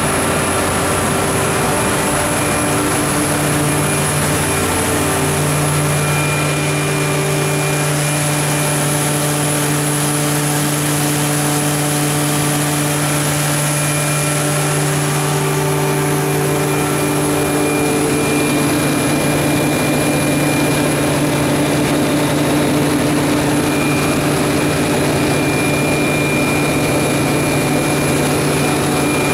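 Cummins GTA28 natural-gas engine of a 500 kW standby generator set running at a steady speed.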